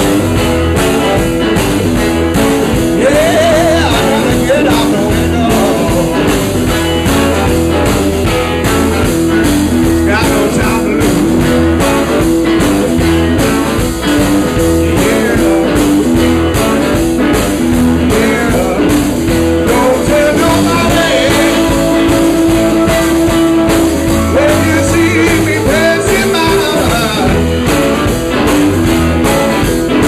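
Live blues band playing: electric guitar over electric bass and drums keeping a steady beat.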